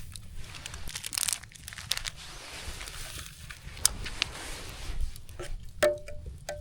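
A packet of oatmeal being torn open and crinkled by hand, in irregular rustles and sharp crackles, with a few short clinks near the end.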